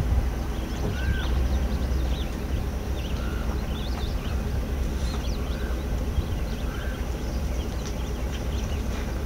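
Outdoor ambience: wind rumbling on the microphone, with birds chirping and calling repeatedly in the trees.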